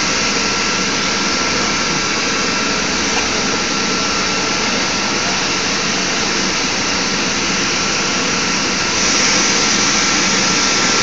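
Automatic shrink-wrapping machine running: a steady whirring hiss with a thin, steady whine in it, getting a little louder and hissier near the end.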